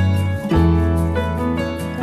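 Gentle background music with a deep bass note and a light plucked or keyboard melody.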